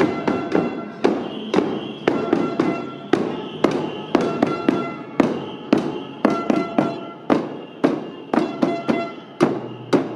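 Several drums carried by marchers, beaten in a steady marching rhythm: a loud stroke about every half second, with lighter strokes between.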